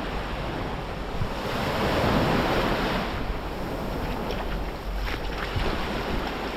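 Sea waves breaking and washing up on a sandy beach, a wave swelling about two seconds in, with wind buffeting the microphone.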